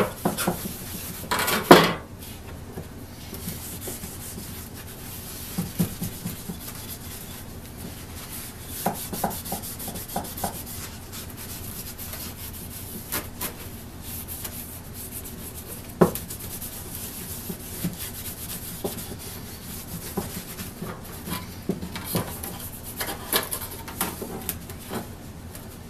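A cloth rubbing paste wax into a wooden hand-saw handle and steel blade: a soft, steady rubbing, with a few sharp knocks as the saw is handled on the wooden bench.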